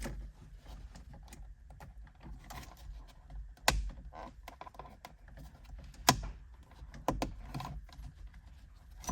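Small plastic clicks and creaks as a cruise control switch is worked out around the plastic of a steering wheel, with two sharper snaps about four and six seconds in.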